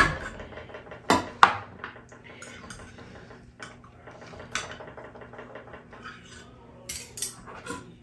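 Metal knife and fork clinking and scraping against a glass baking dish as a baked meatloaf is cut. There are two sharp clinks about a second in, lighter taps in the middle and a quick cluster near the end.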